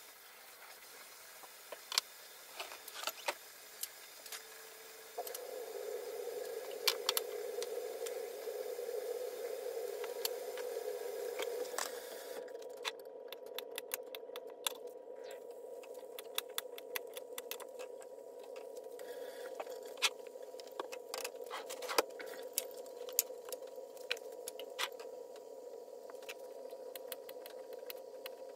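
Kitchen handling sounds: dishes and utensils clinking and scraping at the sink, then a knife tapping against a cutting board while slicing bananas. A steady hum comes in about five seconds in and continues underneath.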